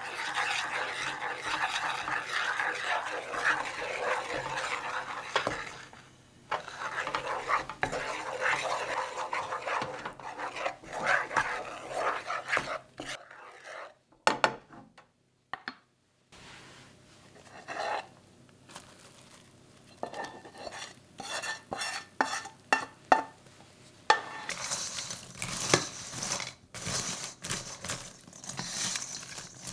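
Wooden spatula stirring hot caramel in a ceramic frying pan, the sauce sizzling and bubbling as baking soda froths it. After a short silence about halfway there are scattered scrapes and taps. From about 24 seconds in, wooden spatulas toss caramel-coated popcorn in a stainless steel bowl with a crisp rustling.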